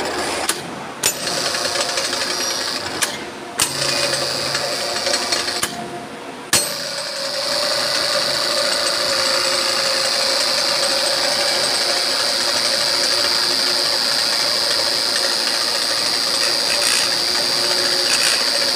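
Electric hoist motor with an electromagnetic disc brake, running with a steady high whine on test after a brake-lining replacement. It stops briefly three times in the first seven seconds, with a sharp click at each stop and restart, then runs without a break.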